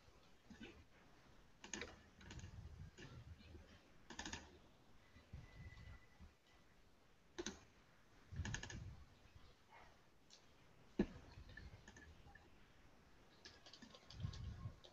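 Faint, scattered clicks and taps of a computer keyboard and mouse, a few at a time with pauses between.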